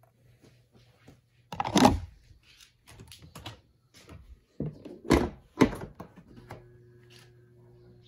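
Several loud thumps and knocks of handling, then a spin dryer's motor starts about six seconds in with a low steady hum as the drum begins its spin.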